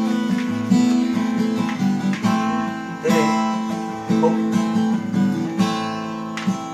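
Acoustic guitar strumming chords as accompaniment between sung lines, a new chord struck every second or so.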